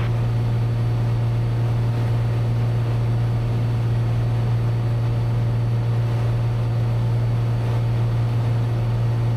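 Cessna 182's piston engine and propeller heard in the cabin in flight: a steady, unchanging low drone.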